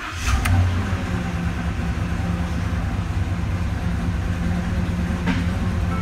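A 2014 Ford F-250 Super Duty's 6.2-litre V8 fires up at the start and runs at a fast idle, heard from inside the cab. It runs rough with a serious knocking noise under the hood, the sign of a multiple-cylinder misfire that was traced to a broken exhaust valve spring.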